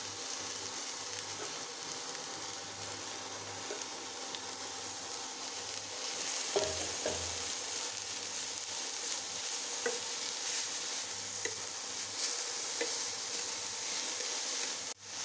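Grated carrot sizzling in hot oil in a steel pan as it is stirred and sautéed with a slotted steel spatula, with scattered light scrapes and clicks of the spatula against the pan.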